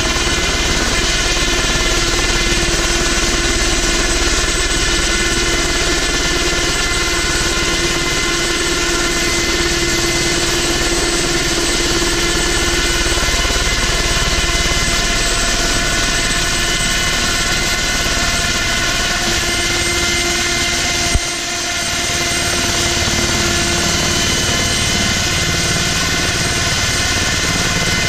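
Ultrasport 496 ultralight helicopter's engine and rotor running steadily at close range while it hovers low and then rests on its skids. A single sharp knock comes about three-quarters of the way through.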